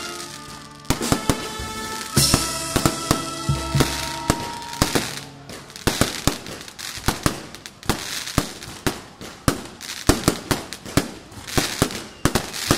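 Aerial fireworks bursting overhead: a rapid, irregular run of sharp bangs and crackles that grows denser about halfway through. Music plays under the bangs for the first few seconds, then fades out.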